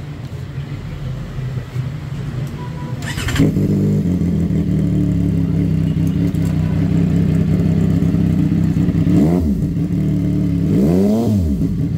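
CFMOTO 675 SR-R's inline three-cylinder engine idling through an aftermarket slip-on exhaust; about three seconds in it gets noticeably louder and settles into a steady idle, then near the end the throttle is blipped twice, a short rev that rises and falls and then a bigger one.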